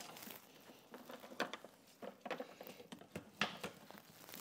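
Faint scattered clicks and rustling of a gloved hand feeding wires and plastic connectors through the base of a dishwasher. Two sharper clicks stand out, one about a second and a half in and one about three and a half seconds in.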